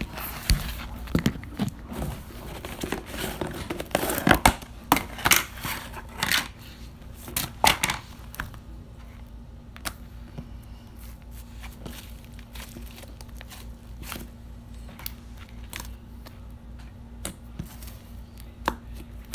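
Hands stretching and squishing slime, making a run of sticky crackles and pops. The crackles are busiest in the first eight seconds and sparse after.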